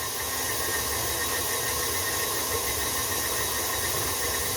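A steady machine-like hum with an even hiss, without change.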